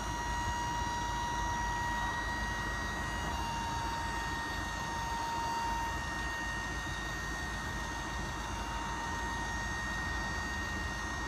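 Electric hydraulic pump of a rear-tipping trailer running steadily, a constant whine over a low hum as it lifts the tipper body; the pitch drops slightly a few seconds in.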